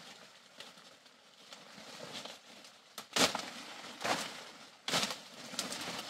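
Dry leaves, bamboo stems and twigs rustling and crackling as a person pushes through dense undergrowth, with sharper crackles about three, four and five seconds in.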